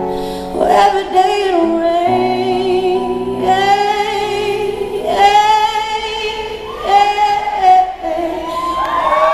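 A woman singing a slow ballad live with a band, holding long notes with vibrato over sustained keyboard chords and bass.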